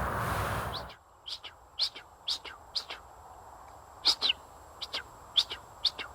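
Songbirds chirping: about ten short, sharp, high calls spread over several seconds in a quiet spring forest. Before them, a steady rushing noise cuts off suddenly about a second in.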